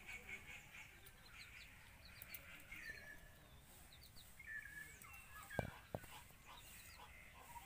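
Faint bird calls: short chirps and sliding whistles recurring throughout, with two soft clicks about five and a half seconds in.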